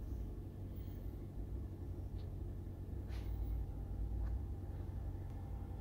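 2020 Jeep Wrangler Rubicon's engine idling steadily, heard as a low rumble from inside the cabin, with a few faint clicks.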